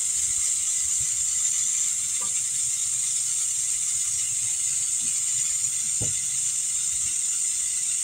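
Air hissing steadily out of a 19-inch car tire through its valve stem as the tire is deflated, with a few faint knocks.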